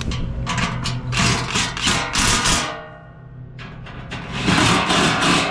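Cordless impact driver hammering skid-plate bolts home under a pickup, in two runs with a pause of about a second between them, as the bolts are run down and tightened.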